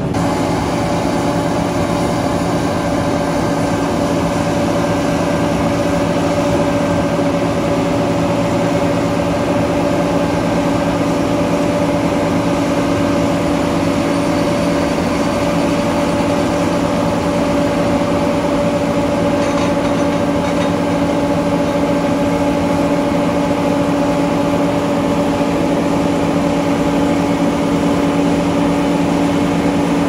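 John Deere 9500 combine harvester running steadily while cutting wheat: a constant engine and machinery drone with a steady-pitched hum that does not change.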